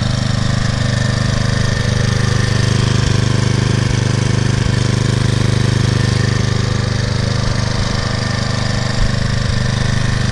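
Husqvarna HU775BBC walk-behind mower's Briggs & Stratton 7.75 gross-torque OHV engine running steadily at an even speed, with a fast, regular exhaust beat.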